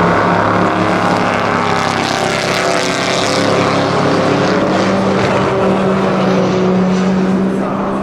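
Bizzarrini 5300 GT race car's Chevrolet V8 running hard as it drives by and away. The note dips a little as the car passes, then holds steady.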